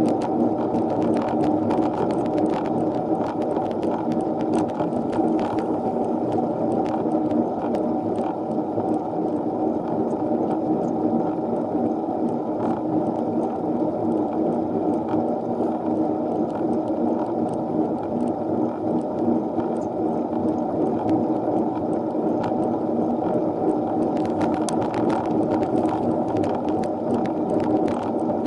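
Steady, muffled riding noise from a minivelo bicycle climbing a hill: road and drivetrain noise with scattered light ticks and rattles.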